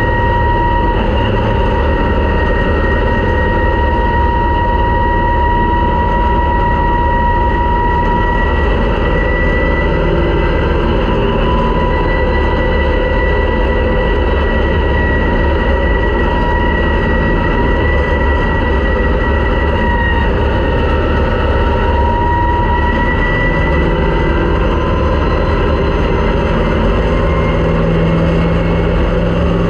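Race car engine running at sustained high revs under a dense rush of noise. Its pitch holds nearly level, easing off slightly a couple of times before climbing back.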